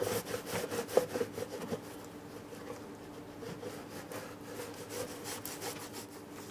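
Scrubbing and wiping a moped's air filter box during cleaning: quick rubbing strokes, dense and loudest for the first couple of seconds, then lighter and more spread out.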